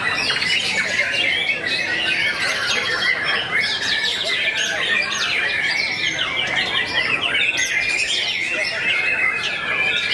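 Several white-rumped shamas (murai batu) singing at once: a dense, unbroken mix of fast whistles, trills and rasping notes.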